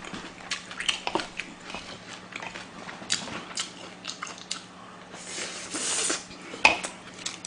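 Close-miked eating: wet chewing and lip smacks at irregular moments, with chopsticks and a spoon clicking against the dishes. A brief hiss comes about five seconds in, and the loudest sharp click just before the end.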